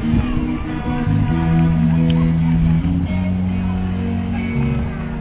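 Music with guitar and bass, playing long held low notes that change every second or two.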